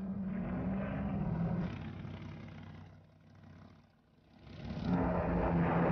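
A steady engine drone that fades away about three to four seconds in, then swells back up near the end.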